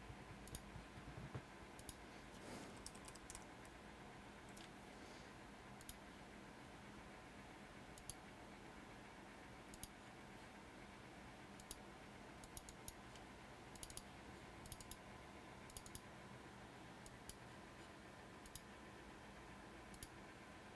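Near silence with faint, irregular clicking at a computer, single clicks and short runs every second or two, over a steady low room hum.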